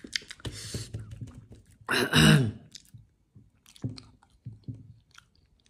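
A person chewing a mouthful of angakar roti, a thick rice-flour flatbread, with small irregular wet clicks and crunches. About two seconds in there is a short, louder vocal sound.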